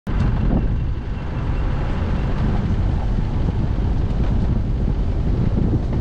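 A four-wheel drive travelling along a dirt track, heard as a steady low rumble with wind buffeting the microphone.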